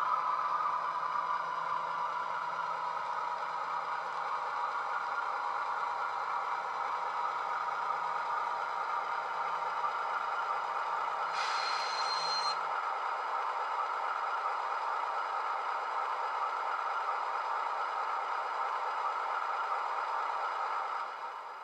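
Diesel engine sound from the DCC sound decoder in a Heljan OO-gauge Class 35 'Hymek' model, played through its small bass-enhanced speaker as the locomotive runs. A brief high-pitched sound comes about eleven seconds in, and the sound fades away near the end.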